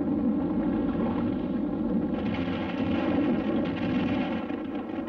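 Cartoon sound effect of a volcano erupting: a continuous, dense rumble that eases slightly near the end.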